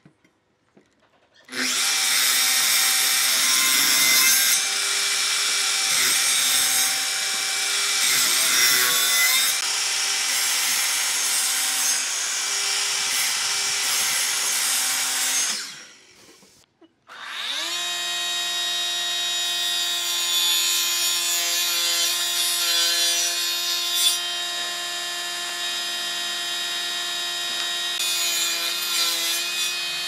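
Makita miter saw running and cutting repeated kerfs into a hardwood block, loud and steady for about fourteen seconds, then winding down. After a short pause, a saw motor spins up with a rising whine and runs steadily to the end.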